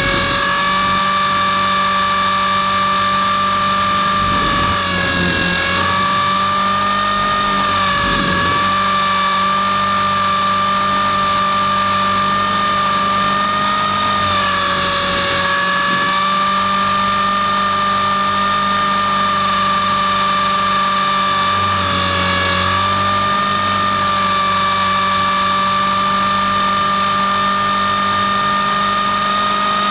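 Trex 450-clone electric RC helicopter in flight, heard from a camera mounted on its frame: a steady high whine from the motor, gears and rotor. Its pitch dips briefly a few times, with low rushing swells of air now and then.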